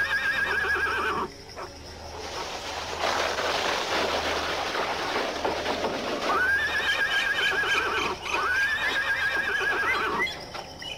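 Horse whinnying three times, each a wavering, quavering call that rises, holds and falls away. Between the first and second whinny there are a few seconds of rough, noisy sound.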